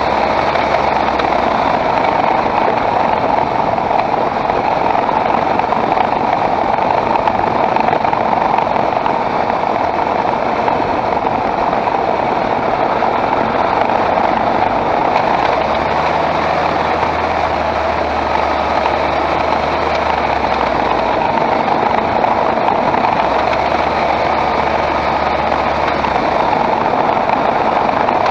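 2013 Skoda Octavia 1.8 TSI with a seven-speed DQ200 dual-clutch gearbox, running steadily, with a low hum that comes and goes. The car has a clattering rattle over bumps and vibration, which the owner suspects comes from the gearbox.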